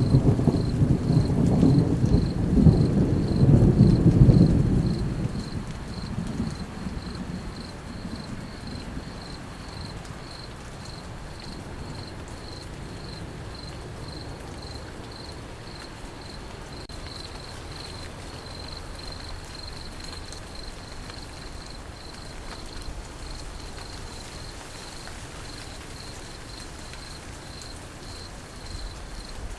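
A loud rumble of thunder in the first few seconds that dies away, over steady rain, with crickets chirping in an even, fast pulse throughout.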